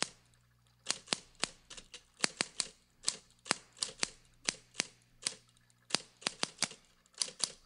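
Typewriter keys clacking one stroke at a time at an uneven typing pace, about three a second, with short pauses between runs.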